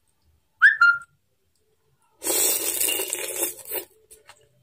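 A person slurping noodles from a bowl of noodle soup: a loud, airy sucking sound of about a second and a half that starts about two seconds in and stops abruptly. About half a second in there is a brief whistle-like puff.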